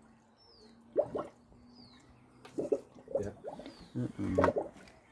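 Water glugging and gurgling in uneven bursts as it is poured from a plastic watering can into a homemade Stirling engine's water reservoir. A bird repeats a short falling whistle about once a second in the background.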